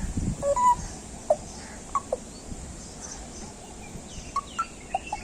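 Pet parrot giving short, scattered chirps and squawks, a few early on and a quick run of them near the end.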